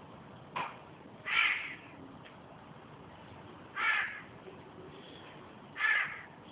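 Three short bird calls, each about half a second long and about two seconds apart, with a fainter, briefer call just before the first.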